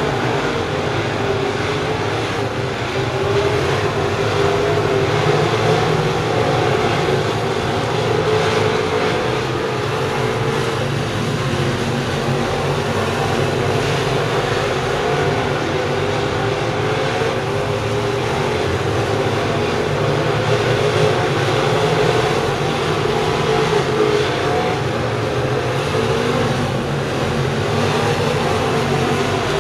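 A field of crate-engine dirt late model race cars running laps on a dirt oval, their V8 engines a steady, continuous drone whose pitch wavers as the cars rise and fall in speed.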